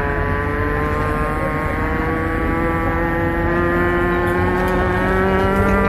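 Electric motor whine of an automatic light-rail (LRT) train, heard from inside the front car, climbing slowly and steadily in pitch as the train pulls away and gathers speed, over a low running rumble.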